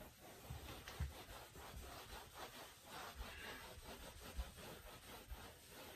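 Cloth wiping a chalkboard: faint, repeated rubbing strokes as the board is erased.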